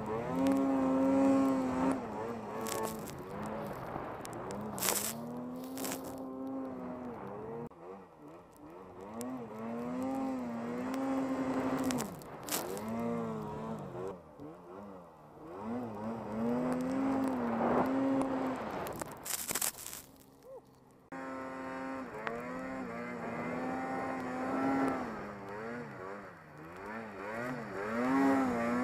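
Arctic Cat snowmobile engine revving up and down over and over as it is throttled through deep snow. Several short, loud bursts of hiss cut across it. The sound drops out briefly and changes abruptly about three quarters of the way through.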